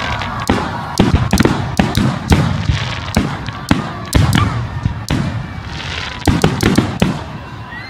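Aerial firework shells bursting overhead: a rapid run of sharp bangs, many coming in quick clusters, with a short lull about five seconds in before another cluster.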